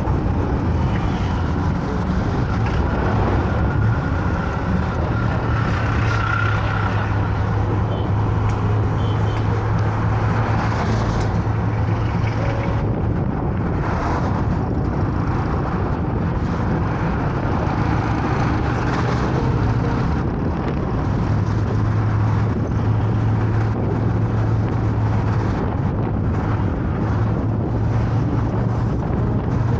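Car driving along a road: a steady low engine hum under tyre and road noise, the noise swelling and easing a few times.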